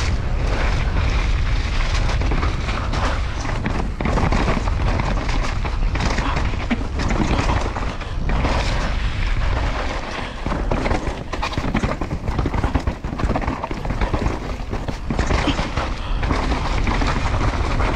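Wind buffeting a GoPro action camera's microphone on a fast mountain-bike descent, a constant low rumble. Through it come many short knocks and clatters of the bike and tyres going over bumps and rocks on the wet trail.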